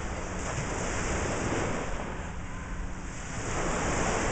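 Small lake waves breaking and washing up a sandy beach, with wind rumbling on the microphone; the surf swells louder near the end.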